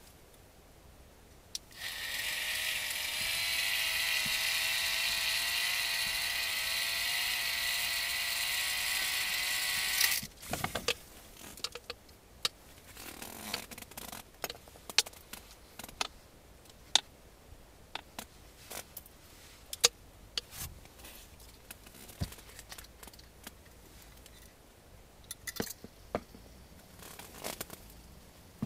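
Small electric fishing reel motor winding in the line with a steady, slightly wavering whine for about eight seconds, then stopping abruptly: the catch being reeled up from under the ice. Scattered light clicks and taps follow as the fish is handled and unhooked.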